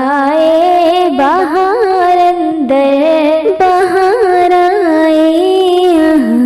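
Naat singing: a voice holding long notes and ornamenting them with quick, wavering turns of pitch.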